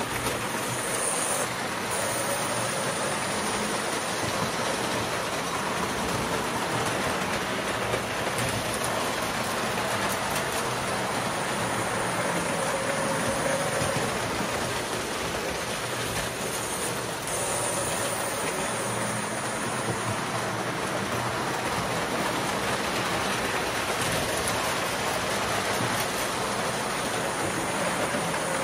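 Toy electric trains running on a layout's metal track: a steady, even noise of wheels and motors.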